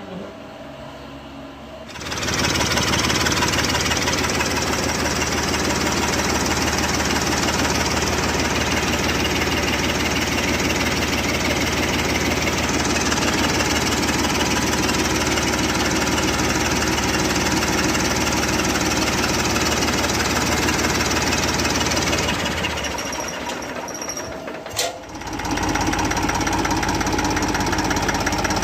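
Overhauled Sonalika tractor diesel engine running steadily. Near the end it drops away for a couple of seconds, with a sharp click, then runs again.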